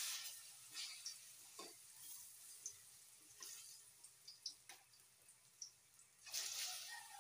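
Saba bananas frying in a wok of hot oil: a hiss of sizzling with scattered pops and crackles, swelling louder at the start and again about six seconds in as tongs turn the bananas.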